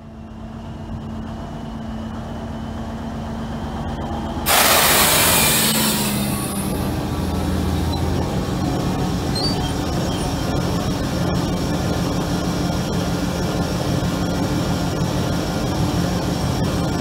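Diesel shunting locomotive D146.2030 running as it draws up, its engine growing louder as it comes closer. About four and a half seconds in, a loud hiss of compressed air bursts out and fades over a second or two. The engine then runs steadily with the locomotive standing close by.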